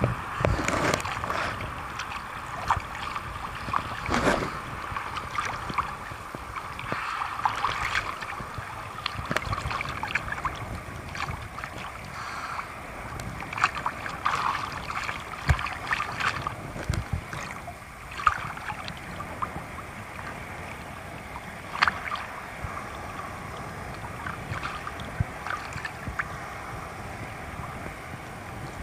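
Choppy sea water sloshing and splashing over a camera held at the waterline, heard as a continuous wash broken by many short, sharp splashes.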